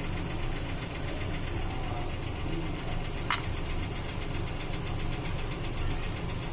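A steady low mechanical hum, with a single faint click a little over three seconds in from a steel knife cutting dried dates on a plate.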